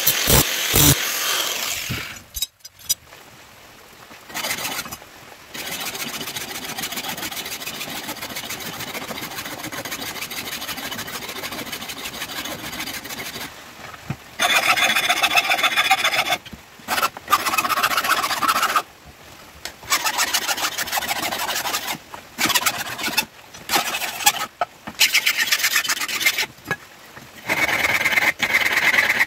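Angle grinder cutting steel for the first two seconds, then a flat hand file scraping back and forth along a steel knife blade, from about halfway on in separate strokes of a second or two with short pauses between.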